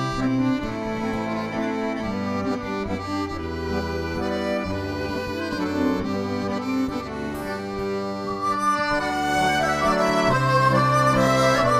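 Norwegian folk band playing an old-time waltz live: fiddles, accordion and guitars over bass and light percussion. A higher, wavering melody line comes in and the music grows louder about nine seconds in.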